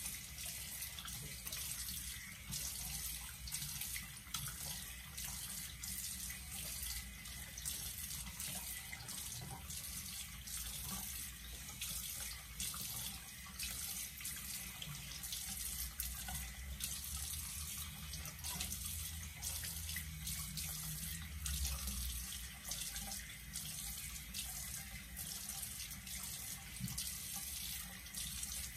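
Bathroom faucet running into a sink, with water splashing as soap is rinsed off a face. The running water goes on steadily throughout.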